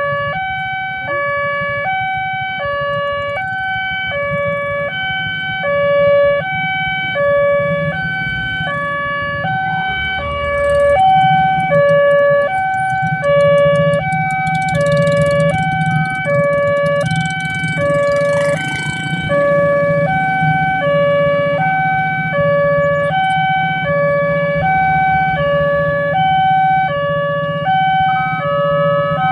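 Railway level-crossing warning alarm sounding: an electronic signal alternating steadily between two notes. Beneath it a low rumble, stronger from about ten seconds in.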